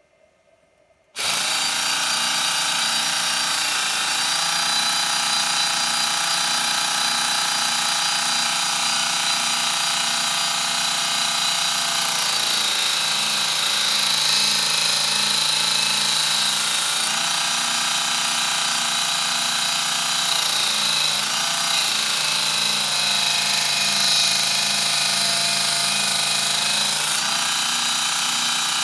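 Mini belt grinder switched on about a second in, its motor and belt running steadily with a whine. The belt sands the inside of a knife's lockback lockbar spring, the sound changing as the part is pressed to the belt.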